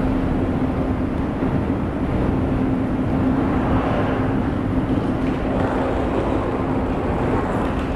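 Escalator running: a steady mechanical rumble with a constant low hum.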